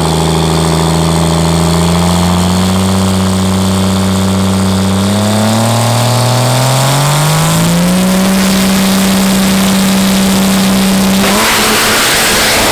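Cummins inline-six diesel in a drag truck revving at the starting line, climbing in pitch in steps and then holding high and steady as the truck launches down the track. A louder rushing noise joins near the end.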